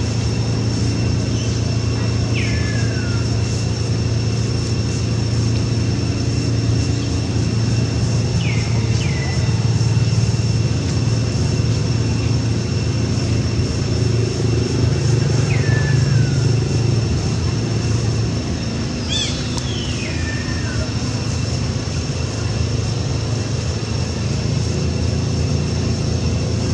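Steady low drone of a distant engine, with a thin steady high whine over it. A few short, high, falling chirps break through several times, in a pair about two-thirds of the way in.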